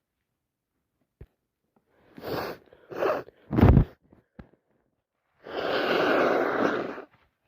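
A woman with a head cold sneezing: two short breaths in, then one loud, wet sneeze about three and a half seconds in, followed by a long, steady blow of her nose lasting about a second and a half.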